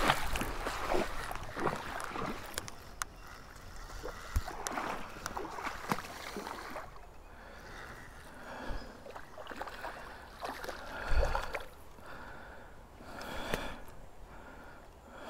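Water splashing in a shallow stream as a hooked redeye bass is reeled in on a spinning reel, with scattered clicks from the reel and the line handling. There is a louder thump about eleven seconds in.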